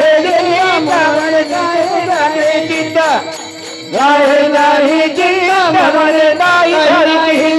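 Devotional abhang music: a singer holding a wordless, sliding melodic line, over steady rhythmic clashes of small hand cymbals (taal). The music drops away briefly about three seconds in, then the voice swoops back up.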